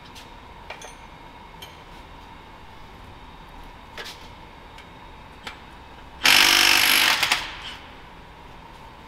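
Impact wrench hammering in one burst of about a second, about six seconds in, working on the exhaust manifold nuts and studs of a Cat 3406E, with a few light tool clicks before it.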